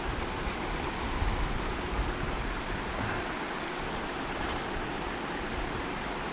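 Steady rushing noise of moving water. Wind buffets the microphone with a low rumble through the first three seconds.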